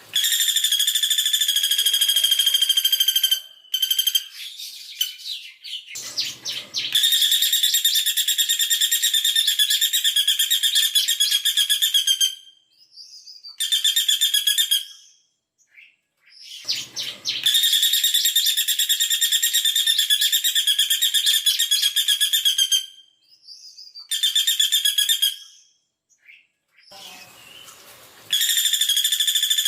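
Female caladi bawang woodpecker giving rapid, tightly spaced high trills in bursts of one to five seconds, with short pauses between them. Two of the bursts are longest, about five seconds each.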